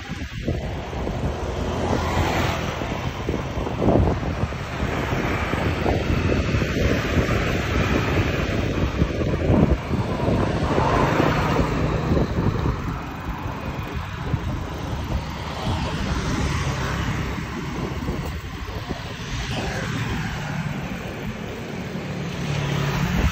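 Wind rushing over the microphone of a moving bicycle, mixed with motorbike traffic passing on the road alongside; a few louder swells as vehicles go by.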